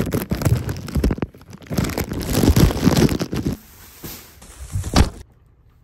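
Plastic packaging crinkling and rustling as a plastic-wrapped dog bed is pulled out of its box and handled, loud and dense at first, then quieter, with a single thump about five seconds in.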